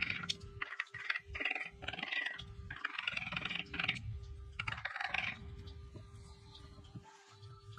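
A hand tool scraping and cutting wood in a run of rough, irregular strokes, one every half-second to second, stopping a little after five seconds in. A faint steady hum runs underneath.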